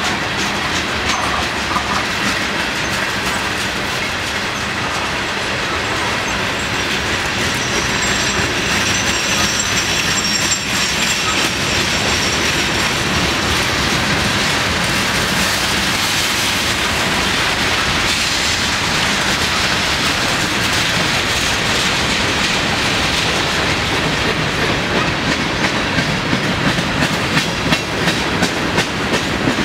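Freight cars of a long manifest train rolling past: a steady rumble of steel wheels with a rapid clickety-clack over the rail joints. A faint, high wheel squeal comes in for a few seconds about a quarter of the way through.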